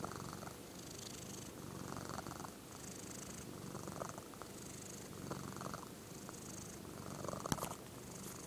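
Domestic cat purring steadily while stroked on the head, the purr swelling and fading with each breath about every one and a half to two seconds. A single sharp click sounds near the end.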